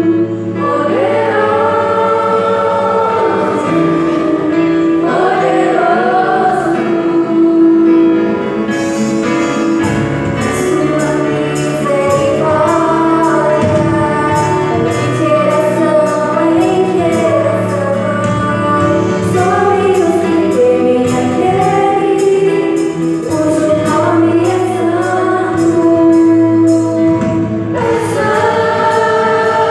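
Children's choir singing a church song over instrumental accompaniment with sustained low notes. A light, steady beat comes in about nine seconds in.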